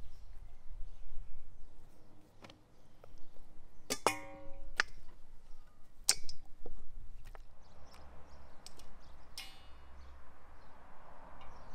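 Raw quail handled and set into a stainless steel bowl: several sharp knocks against the metal. The loudest, about four seconds in, sets the bowl ringing for nearly a second.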